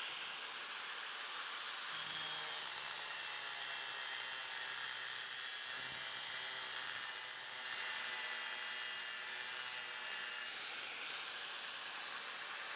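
A power tool whirring steadily with a faint whine, cutting a piece of old truck brake lining.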